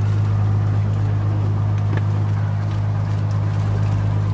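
Fishing boat's engine running steadily, a low, even drone with no change in speed.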